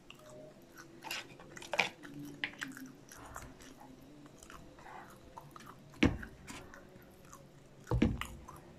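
Close-miked chewing and biting of cheesy popcorn chicken, with many small wet clicks and crackles from the mouth. Two dull knocks, about six and eight seconds in, are the loudest sounds.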